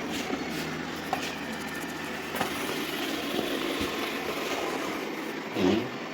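Xiaomi Mi Robot Vacuum-Mop Essential running a cleaning cycle: a steady whir of its motors and brushes, with scattered clicks and knocks.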